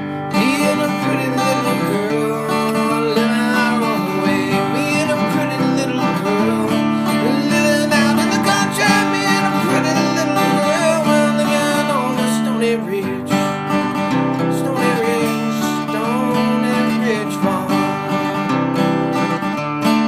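Intro music led by acoustic guitar, playing steadily.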